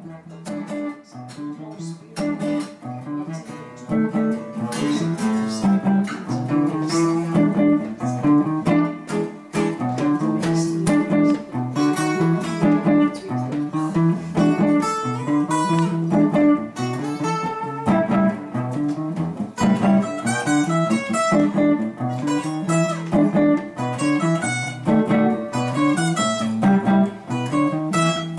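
Acoustic guitar and electric guitar playing together, an instrumental passage of picked and strummed notes. It starts softly and gets louder about four seconds in.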